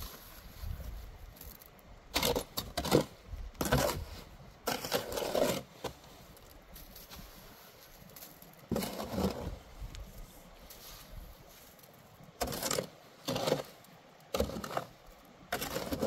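Irregular short scraping strokes, about ten of them, each lasting under a second with pauses between.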